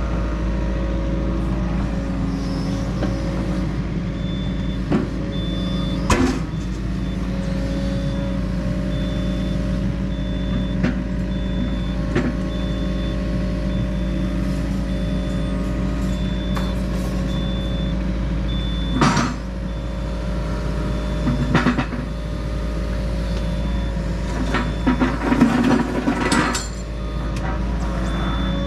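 Yanmar mini excavator's diesel engine running steadily as the boom, bucket and thumb are worked, with a high beep repeating at an even pace. Several sharp metal clanks come through, the loudest a little past the middle and in a cluster near the end.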